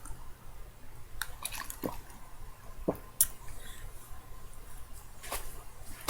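Sipping and swallowing ice water: a handful of brief, soft, scattered mouth and liquid sounds, with no burp.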